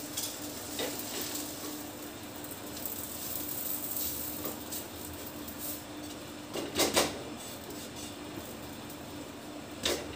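Kitchen pots and utensils being handled: light knocks, then two sharp clanks about six and a half to seven seconds in, and another just before the end, over a steady low hum.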